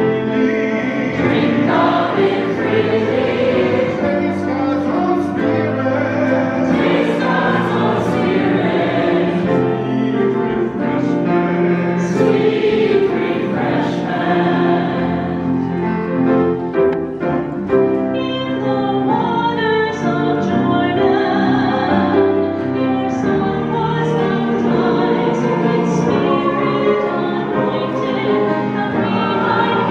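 Church choir singing a hymn, many voices holding sustained chords.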